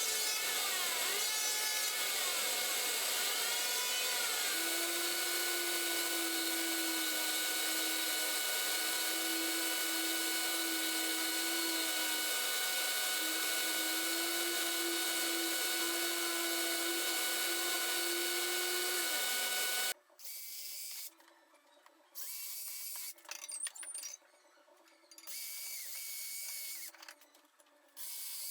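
A handheld power tool runs steadily for about twenty seconds, then cuts off suddenly and is run again in several short bursts of a second or two, with pauses between them.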